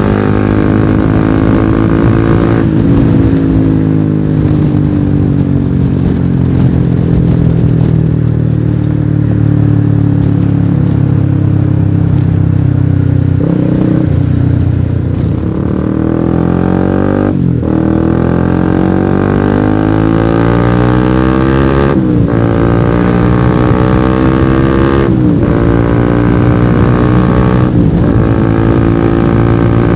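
Honda CBR150R's single-cylinder engine through a lightly modified exhaust, heard while riding. The engine note falls slowly as the bike eases off for the first dozen seconds. It then accelerates through the gears: the pitch climbs and drops at an upshift about halfway, then again every three or four seconds.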